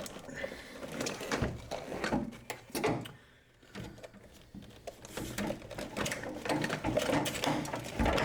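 Ratchet wrench clicking in short runs as a bolt is backed out, mixed with metal clinks and handling knocks.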